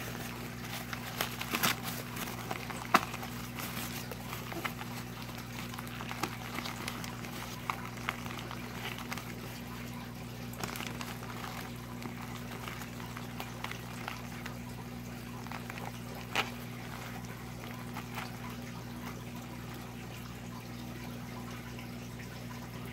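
Plastic bags and packing paper crinkling and rustling in a cardboard shipping box as it is unpacked, in scattered small crackles that are busiest in the first few seconds, over a steady low hum.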